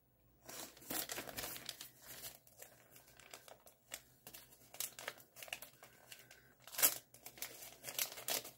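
A printed packaging bag crinkling and rustling as it is handled and opened by hand, in irregular bursts, with a louder burst near the end.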